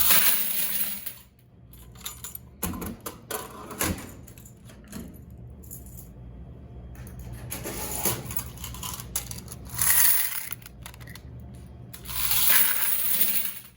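Quarters jingling and pouring out of laundromat washers' coin boxes during a coin collection, in about four bursts with clinks and rattles between them.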